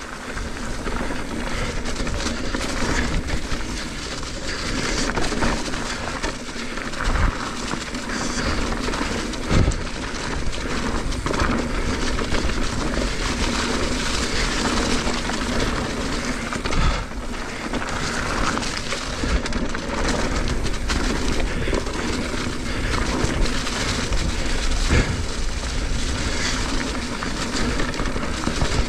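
Mountain bike riding fast down a dirt flow trail: tyres rolling over dirt and wind rushing on the microphone, with a few heavy thumps from landings and bumps.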